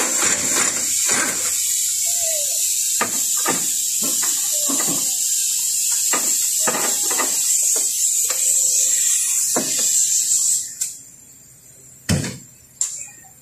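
Mitsubishi L200 diesel engine running rough with irregular knocks, the misfire the owner puts down to cylinder 3, then cutting off suddenly about eleven seconds in; two sharp knocks follow.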